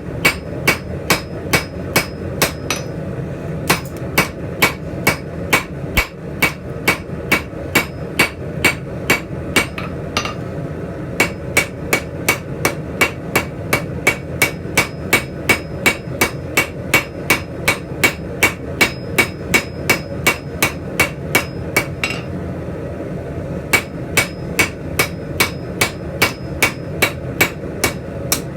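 Blacksmith's hand hammer striking steel on an anvil, forging a pair of scrolling tongs, in a steady rhythm of about three blows a second. The blows stop briefly three times, about three, ten and twenty-two seconds in, over a steady low background noise.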